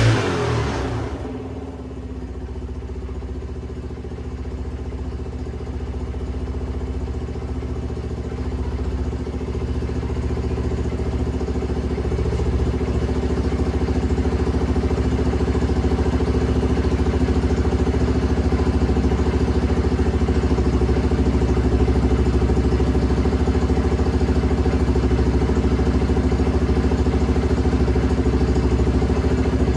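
A small engine running steadily at idle. It grows louder over the first dozen seconds, then holds an even pitch and level.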